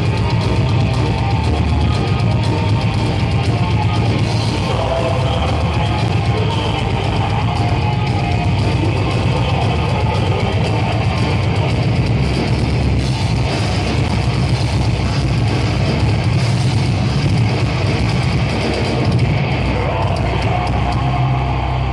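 A heavy metal band playing live, with distorted electric guitars and a drum kit, loud and steady, heard from among the audience in a large hall.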